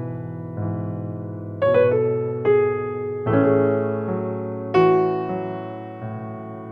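Background music: electric piano playing slow chords, each struck and left to fade.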